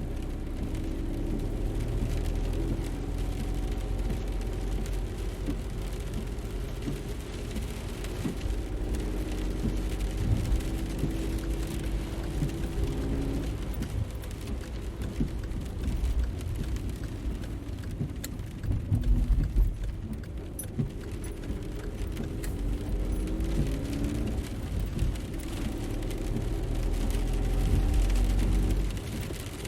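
A car engine running under way, its pitch slowly rising and falling with engine speed over a steady low rumble. There is a louder rough patch about two-thirds of the way in, and a swell near the end that cuts off suddenly.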